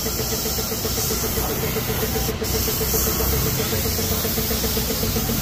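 Paint spray gun hissing steadily as a semi-matt black coat is sprayed onto motorcycle panels, over a steady machine hum with a rapid regular pulse.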